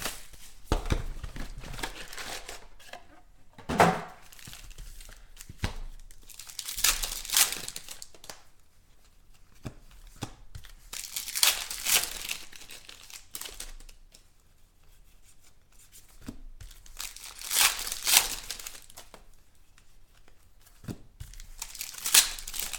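Wrappers of 2016 Contenders football trading card packs being torn open and crinkled, in a series of separate rips and rustles every few seconds.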